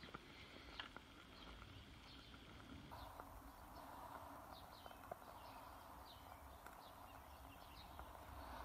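Near silence: faint outdoor room tone with a few soft clicks and some faint, short, high chirps.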